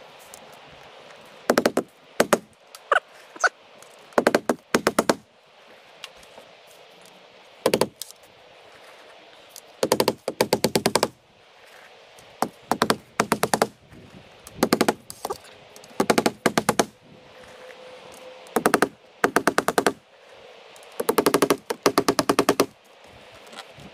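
Hammer driving nails through a metal drip edge into the roof eave, in repeated bursts of rapid, sharp strikes.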